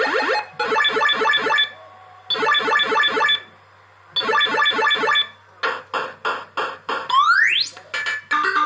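Bellfruit SilvaReels fruit machine board's AY sound chip playing electronic game sound effects: several bursts of rapid beeping with short pauses between them, then a run of separate blips and a fast rising sweep. A steady jingle begins near the end.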